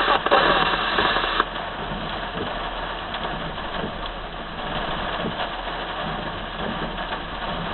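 Radio scanner hiss and static between transmissions, heard through a narrow-band radio speaker. The tail of a dispatch transmission cuts off about a second and a half in.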